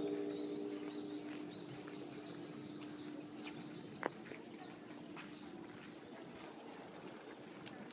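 A temple bell rings out from a single strike at the start, its steady hum slowly fading over several seconds. Small birds chirp repeatedly, and a sharp click sounds about four seconds in.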